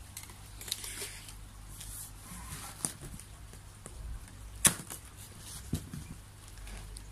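Cardboard box of a polytunnel kit being opened and handled by hand: light rustling with a few scattered knocks and clicks, the sharpest a little past halfway.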